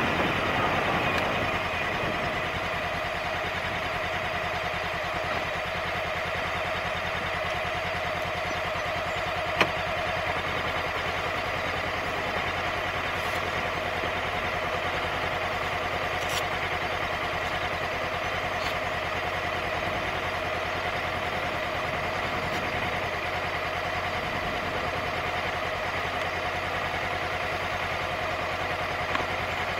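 2016 Honda CB500X's parallel-twin engine idling steadily at a standstill, after the wind and road noise die away as the bike slows to a stop in the first couple of seconds. One sharp click about ten seconds in.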